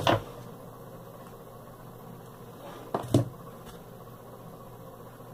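Two brief knocks, one at the start and a louder one about three seconds in, from craft items being handled and set down on a tabletop, over a steady low hum.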